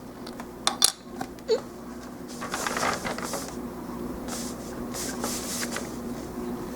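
Small plastic model-kit parts clicking and clattering as they are handled: a few sharp clicks near the start, then a few seconds of rustling and rattling, over a steady low hum.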